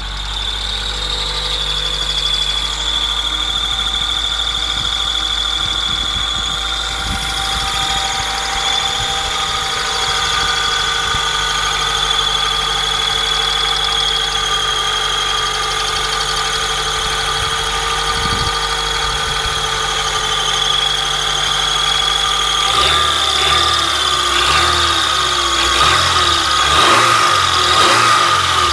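Honda Prelude engine idling cold with a steady, high-pitched squeak over the running engine. This is the noise that comes only while the engine is cold and goes away once it reaches working temperature.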